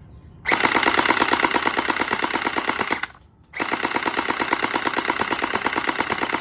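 Gel blaster firing on full auto in two long bursts of rapid, evenly spaced shots, the first lasting about two and a half seconds, then a short pause before the second.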